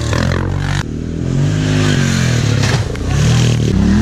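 Off-road vehicle engine revving hard, its pitch rising and falling, with an abrupt change in the sound about a second in.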